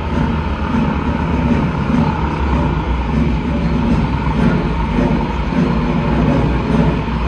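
Propeller airplane engines running with a loud, steady drone over a low rumble that throbs unevenly.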